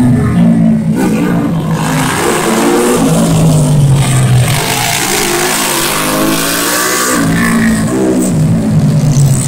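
Automatic racing scooter engine revving hard through a corner. Its pitch rises and falls as it brakes and accelerates, then climbs again near the end.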